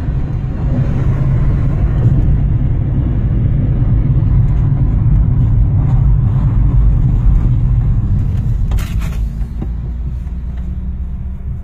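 Car's engine and road rumble heard from inside the cabin while driving, a steady low rumble that eases off as the car slows near the end. A brief knock about nine seconds in.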